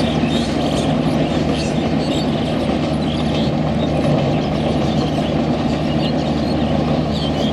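WDM3A 3100 hp diesel-electric locomotive passing with LHB coaches: a steady low engine drone over the continuous rumble of wheels on the rails.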